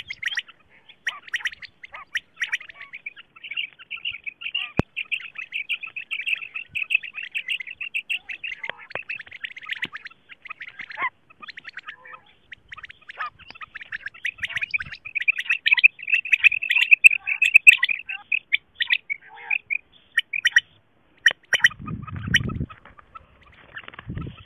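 Female quail (batair) calls used as a hunting lure: a rapid, continuous chatter of high calls, loudest past the middle. A brief low rumble comes near the end.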